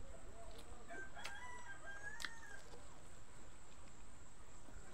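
A rooster crowing once, a single long call starting about a second in and lasting about a second and a half, with two sharp clicks during it.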